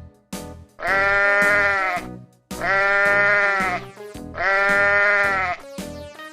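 A sheep bleating three times, each bleat held for about a second, over light children's background music.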